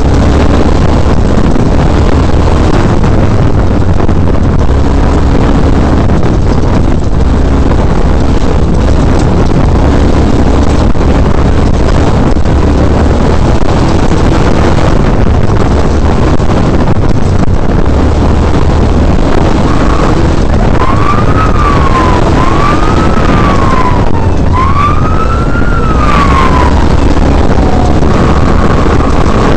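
Class 1450 desert race mini-truck running hard over a dirt course: loud, steady engine and road noise with a heavy low rumble. About two-thirds of the way through, a higher tone rises and falls three times.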